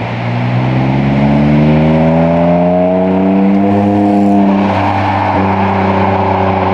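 BMW E30's swapped-in M52B28 2.8-litre straight-six, breathing through a custom exhaust, pulling under acceleration: its pitch climbs steadily for about four seconds, then levels off and holds at a steady cruise.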